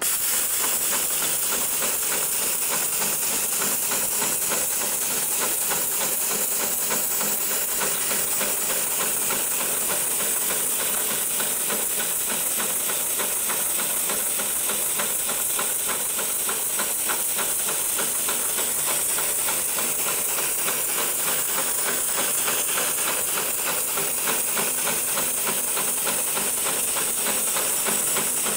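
Hightex 733PLC heavy-duty programmable pattern sewing machine stitching through multi-ply synthetic webbing: a fast, even needle rhythm over a steady hiss. It starts abruptly and runs without a break.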